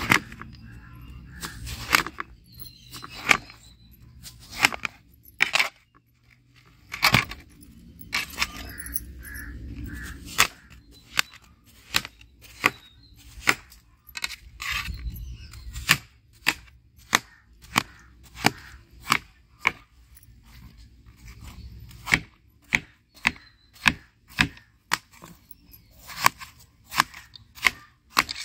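Large kitchen knife chopping peeled watermelon on a metal plate, each cut ending in a sharp tap of the blade on the plate. The taps come about once a second through the middle and quicken to about two a second near the end as the slices are cut into cubes.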